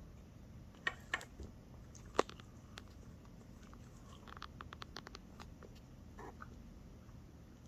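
A person eating: quiet chewing, with a few sharp clicks about one and two seconds in and a run of quick faint ticks near the middle.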